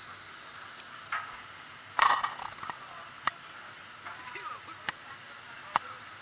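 A few sharp clicks and knocks over a steady hiss of wind, with faint voices in the background. The loudest knock comes about two seconds in.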